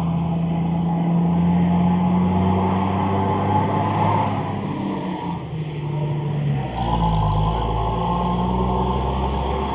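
Motor vehicle engine running steadily, its low note shifting a few times and dropping deeper about two-thirds of the way through.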